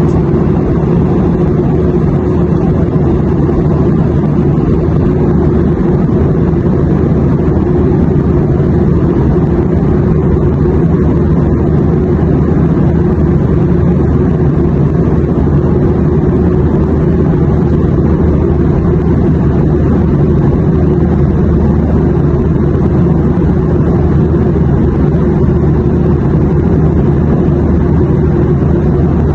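Steady airplane cabin noise in flight: an even, deep rumble of engines and airflow with a faint steady hum in it, unchanging throughout.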